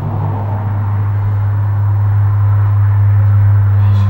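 A steady, deep bass drone from the song playback, swelling slightly in loudness, with a faint hiss above it; a second, higher tone joins about three seconds in.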